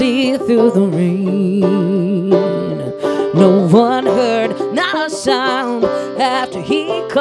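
A woman singing a folk song to her own open-back banjo accompaniment, holding notes with a wavering vibrato, the longest about a second in.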